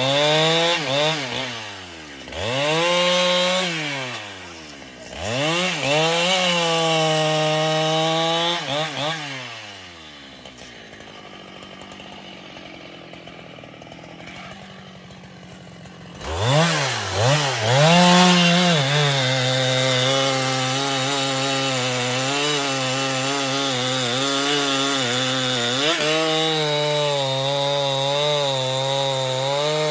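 Husqvarna 395XP two-stroke chainsaw revving up and down in short bursts as it cuts into a log. About ten seconds in it drops to a quiet idle. Around sixteen seconds it revs up again and runs at a steady full throttle through a long cut, dipping slightly under load.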